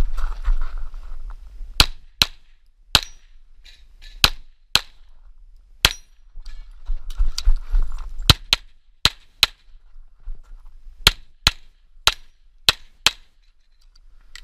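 Tanfoglio Stock II 9x19 pistol fired about fifteen times, mostly in quick pairs a third to half a second apart, with a few single shots. A low rumble fills the gaps around the start and again around seven seconds in.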